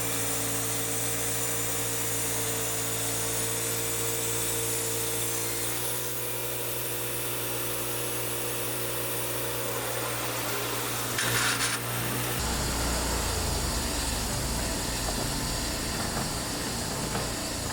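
Power drill running steadily while boring holes in wood for lag screws. Its tone shifts about six seconds in and again a little past halfway, with a short knock just before.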